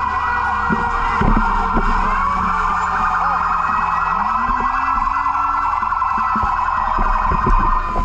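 Emergency vehicle sirens sounding over one another: a rapid warbling wail over a steady high tone. Scattered short knocks come through underneath.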